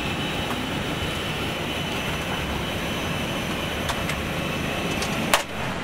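Steady hiss of airliner cockpit ventilation and avionics cooling fans in an Airbus A321 on the ground, with a faint high whine running through it. Two sharp clicks come near the end.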